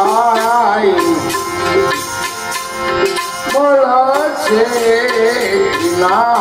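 A man singing a Gujarati devotional bhajan in long, wavering phrases, accompanied by a harmonium's sustained reed tones and hand-drum strokes. The voice pauses for a couple of seconds about a second in, while the harmonium and drum carry on.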